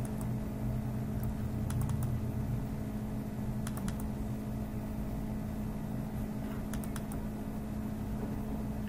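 A few short clusters of computer mouse clicks, some in quick pairs like double-clicks, over a steady low electrical hum.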